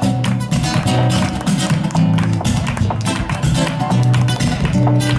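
Flamenco guitar playing a fast rhythmic passage, accompanied by flamenco hand-clapping (palmas) keeping time in quick sharp claps.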